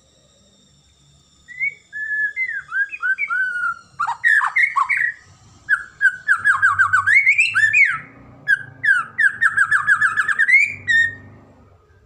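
White-rumped shama singing a loud, varied song of clear whistled notes and fast repeated trills. It starts about a second and a half in and stops near the end.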